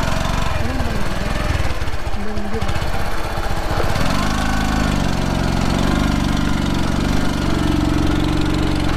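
Bajaj Platina 100cc single-cylinder four-stroke motorcycle engine running while riding a rough dirt track. It is uneven for the first few seconds, then steadies and climbs slowly in pitch as it revs up.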